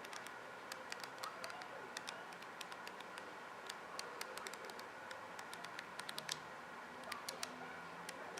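Irregular sharp ticks and taps of a bird's beak pecking at seed, coming in quick clusters with short gaps, over a faint steady hiss.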